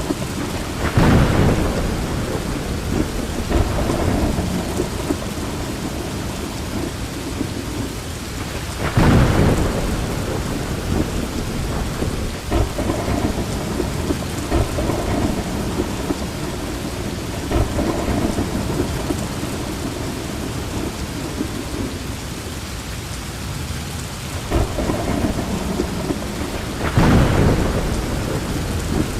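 Heavy rain falling steadily, with thunder rumbling through it in repeated swells, the loudest about a second in, around nine seconds in, and near the end.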